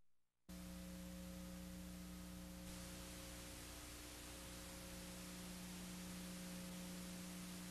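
Steady electrical mains hum with a constant hiss, starting after about half a second of dead silence.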